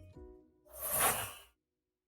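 Background music fading out, then a short whoosh that swells and cuts off suddenly into silence.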